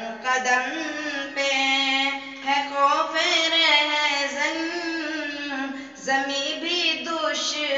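A boy's voice singing an Urdu naat unaccompanied, in long held notes with wavering melodic turns and a brief breath about six seconds in.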